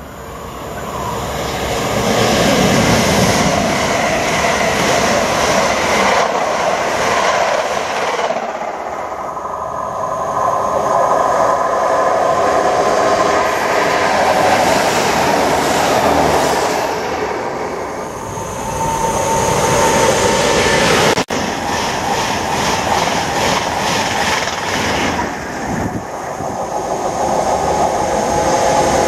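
Trains running past one after another, wheels clattering on the rails, each swelling and fading as it goes by: a Class 165/166 Turbo diesel multiple unit passing about halfway through, then, after an abrupt cut about 21 seconds in, a DB Class 66 diesel locomotive approaching.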